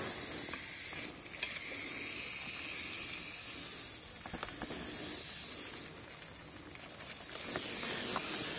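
Timber rattlesnake rattling its tail: a continuous high buzzing hiss that breaks off briefly about a second in and again for over a second near the six-second mark. It is the snake's defensive warning at being disturbed and lifted with a snake hook.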